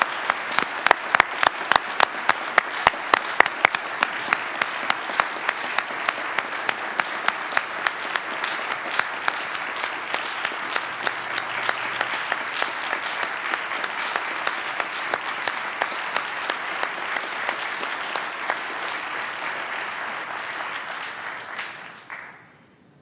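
Audience applauding steadily, with a few loud single claps standing out in the first few seconds; the applause dies away near the end.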